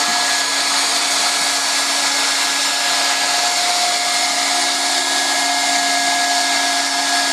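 Hot-air blower of a semi-automatic roofing welding machine running steadily: an even rush of air with a constant hum and higher whine.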